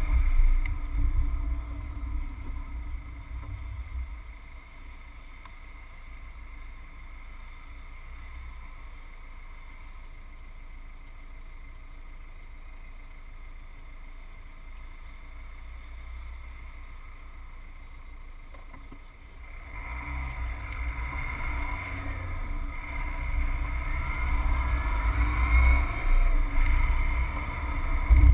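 Subaru Forester's flat-four engine and road noise heard from inside the cabin. The car slows and sits quietly at idle, then a little after halfway it pulls away, and the engine and tyre noise rise along with a low rumble.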